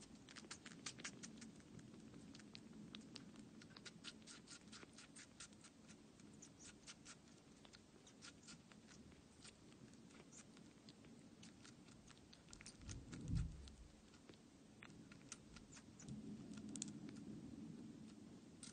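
A kitten lapping and sucking at the tip of an oral feeding syringe: faint, quick runs of small wet clicks from its tongue and mouth, thickest in the first half, over a low hum, with one low thump about 13 seconds in.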